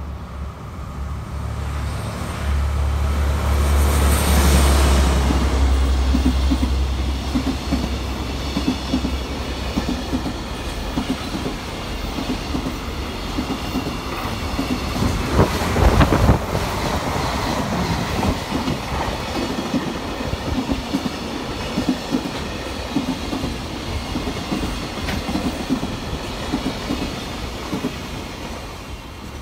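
A DE10 diesel-hydraulic locomotive passes close by with its V12 diesel engine running, loudest about four seconds in. A long freight train of container wagons follows, its wheels clattering rhythmically over the rail joints. About halfway through, a 381-series Yakumo limited express passes on the track behind, adding a brief, louder burst of train noise over the freight.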